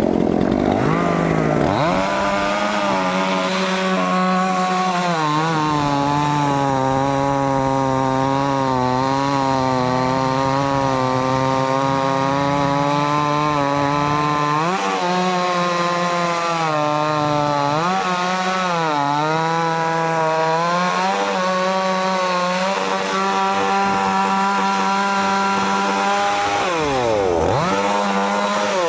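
Two-stroke chainsaw cutting into a tree, running steadily under load. Its pitch dips briefly several times as the chain bites, and swings up and down about two seconds in and again near the end.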